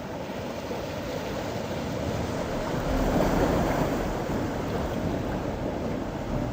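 Mediterranean sea waves washing against the rocky shore, a steady rush that surges louder about three seconds in, then eases.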